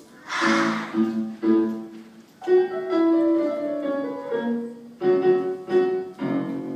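Live keyboard music: a melody of held notes, each lasting about half a second. A short noisy hiss-like burst comes about half a second in.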